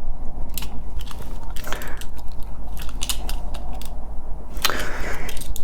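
Small parts clicking and cracking as the wireless charger is pried apart to free its induction coil, with a longer scrape about five seconds in, over a steady low hum.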